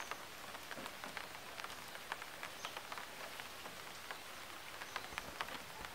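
Faint, irregular patter of water drops with scattered small ticks.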